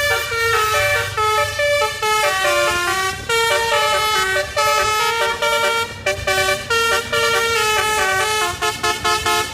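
Musical multi-tone vehicle horns playing a tune in quick stepped notes, with short breaks between phrases.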